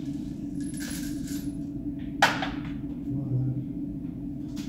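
A single pistol shot about two seconds in: one sharp crack with a short tail of echo, over a steady low hum.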